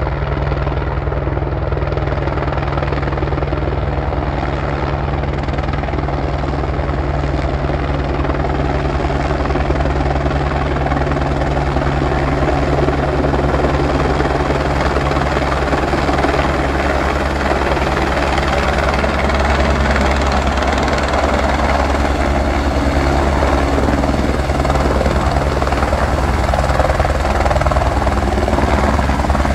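Single-engine light helicopter descending to land, its main rotor chopping and engine noise steady and loud, growing a little louder as it comes down close.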